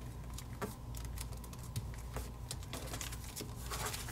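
A sheet of paper being handled and creased by fingers as an origami fold is pressed flat: scattered light clicks and soft rustles, with a couple of sharper ticks.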